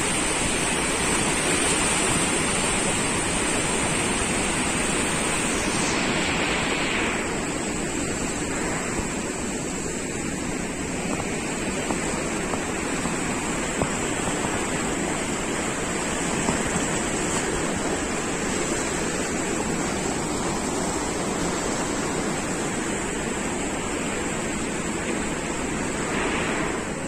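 Steady rushing of water released through a dam's open spillway gates, churning in white rapids around rocks below.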